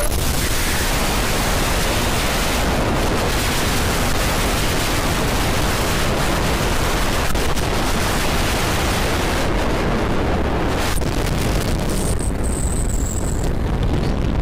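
Wind rushing over the microphone of a motorcycle ridden at around 100 km/h: a dense, steady hiss of noise that buries the engine. The high hiss thins out over the last few seconds as the bike slows.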